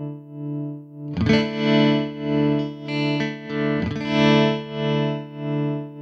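Electric guitar chords played through a Strymon Flint's tremolo, the volume pulsing evenly about one and a half times a second; fresh chords are strummed about a second in and again about four seconds in.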